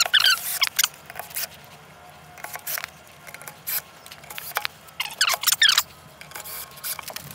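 Cordless drill driving screws into sheet-aluminium panels in short bursts, with clicks and metal clatter between them.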